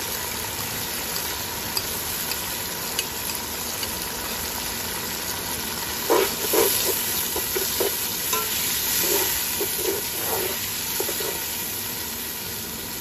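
Garlic-ginger paste sizzling in hot oil with fried onions in a steel pot. About six seconds in, a perforated steel skimmer starts stirring the paste in, scraping and knocking against the pot in a run of short strokes.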